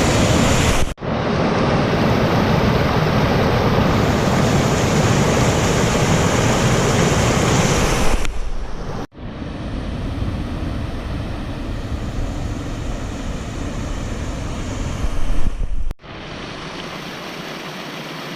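Rushing water of a rain-swollen creek spilling over rocks in small waterfalls, a steady loud rush. It drops abruptly in level about nine seconds in and again about sixteen seconds in.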